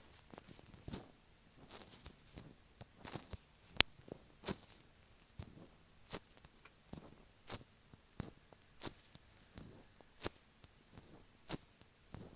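Close, irregular taps and sticky touches right on an earphone microphone, about one or two a second, with one sharper tap about four seconds in.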